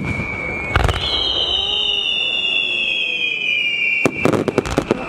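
Fireworks going off: a shrill whistle that falls slowly in pitch for about three seconds, with sharp bangs about a second in and a quick cluster of bangs near the end.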